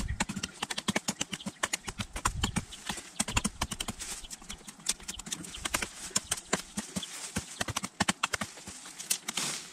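Victorinox Venture fixed-blade knife chopping into soft live wood: a quick, irregular run of sharp knocks and crackles.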